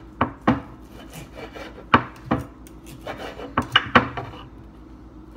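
Table knife sawing back and forth through cooked bacon-wrapped steak on a wooden cutting board, with three pairs of sharp knocks as the board bounces on the counter.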